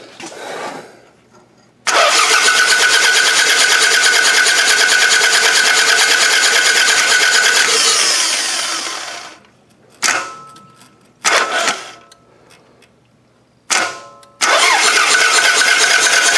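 Toyota Camry engine being cranked over by its starter without catching: one long crank of about seven seconds with a steady starter whine that winds down, three short bumps of the starter, then cranking again near the end. The engine won't start because its timing belt is broken.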